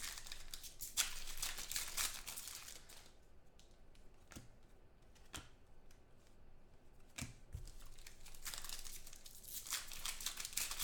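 Plastic trading-card pack wrapper crinkling and tearing in two stretches, about a second in and again near the end, with a few light taps between.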